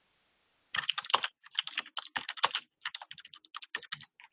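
Typing on a computer keyboard: a quick run of keystrokes starts just under a second in and thins out toward the end.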